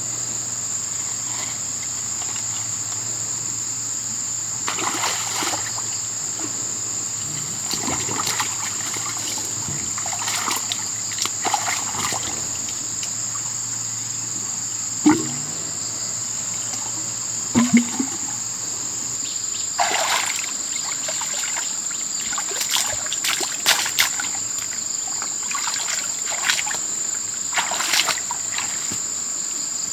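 Shallow muddy water splashing and sloshing in scattered bursts as someone wades and works with their hands in it, over a steady high-pitched drone of insects.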